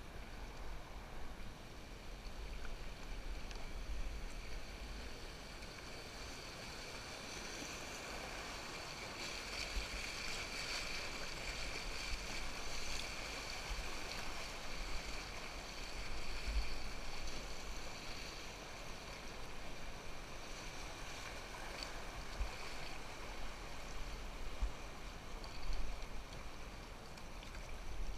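Fast river water rushing around a loaded canoe, a steady hiss that grows louder through the middle as the canoe runs a riffle of whitewater, then eases.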